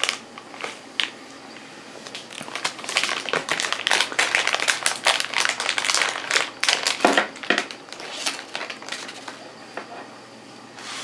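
Plastic blind-bag packet crinkling and crackling as it is handled and torn open, in quick dense runs that thin out near the end.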